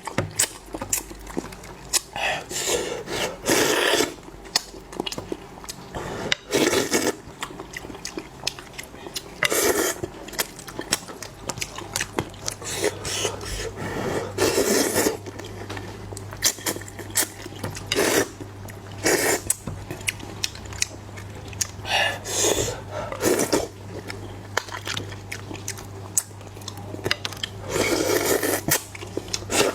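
Close-up eating sounds: a person biting, chewing and slurping food in irregular mouthfuls every second or two, with occasional scrapes of utensils on a dish.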